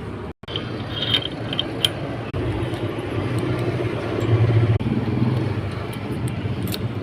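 Steady low mechanical hum of workshop noise, broken by a few sharp clicks. It cuts out completely for a moment about half a second in.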